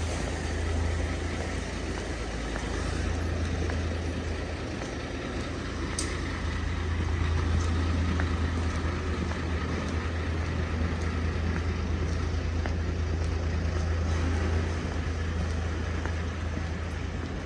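Steady road traffic on a city street: a continuous low rumble of passing vehicles with a few faint ticks.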